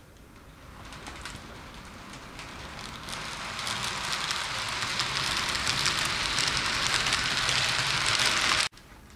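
Model First Great Western HST train running along the track past the microphone: a dense rattle of wheels on rail that grows steadily louder over several seconds, then cuts off suddenly near the end.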